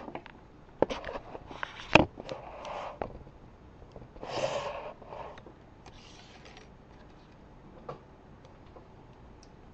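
Small hand tools and bobby pins being handled on a work surface: a few sharp clicks and knocks, the loudest about two seconds in, with short rustling and scraping sounds in between.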